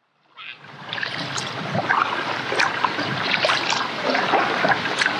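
Creek water rushing and splashing over rocks in a small set of rapids, a steady babble with little splashes in it. It rises in about half a second in and then runs on evenly.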